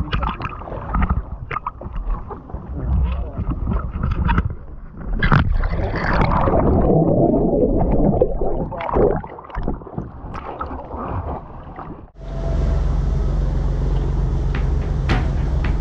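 Water sloshing and splashing around a small boat, with scattered knocks and wind on the microphone, and a louder rush of water about five seconds in. About twelve seconds in the sound cuts suddenly to a steady low hum.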